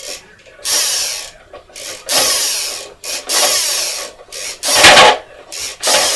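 Plastic spinning wheel of a Wheel of Fortune board game being spun by hand: a series of short, rough scraping, whirring bursts, the loudest about five seconds in.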